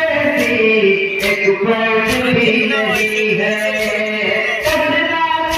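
Men chanting a Muharram nauha (lament) in a slow, melodic line, with sharp matam (chest-beating) slaps at about one a second.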